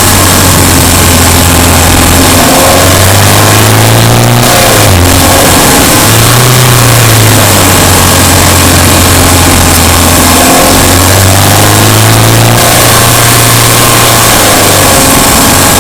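Subaru Impreza Sport's 2.0-litre flat-four engine running while driving, its pitch shifting up and down several times as the revs change, over steady loud road and running noise.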